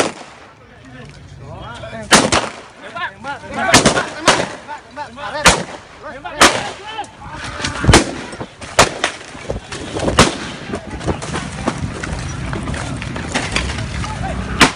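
Police pistol shots, about ten single shots at uneven intervals, the first fired with the pistol pointed into the air as a warning. Men's voices shout between the shots.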